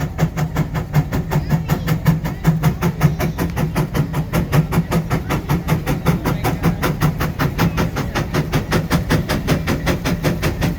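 150-horsepower Case steam traction engine working under heavy load, its exhaust chuffing in a fast, even beat of several strokes a second over a steady low drone.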